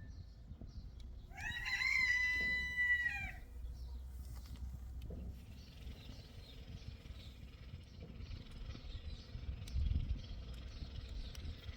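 A rooster crows once, a single pitched call of about two seconds starting a second or so in, over a steady low rumble.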